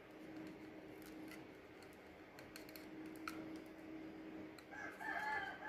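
Faint light clicks and taps of a small plastic wireless-mic transmitter and its battery being handled and pressed together, over a low steady hum. Near the end a faint steady tone comes in.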